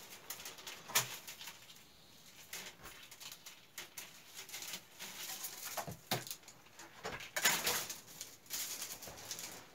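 Willow rods rustling and clicking against one another as a bundle of them is handled, with sharp knocks about a second in and about six seconds in, and a denser rustle near the end.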